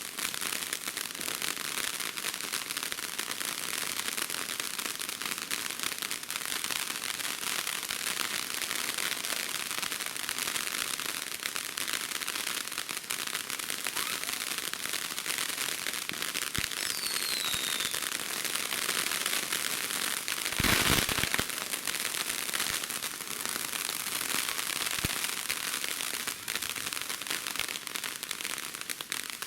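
Consumer fireworks crackling continuously as a dense stream of tiny rapid pops. A little past halfway a short whistle falls in pitch, and soon after comes a louder burst, the loudest moment.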